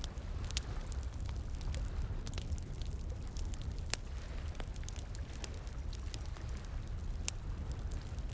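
Wood bonfire crackling, with sharp pops at irregular intervals, over the steady low rush of flowing water.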